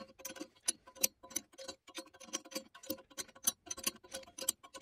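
Rapid, somewhat irregular metallic clicking, about five or six clicks a second, from a wrench working the bolts of a crankshaft sleeve-installer tool, in footage sped up five times.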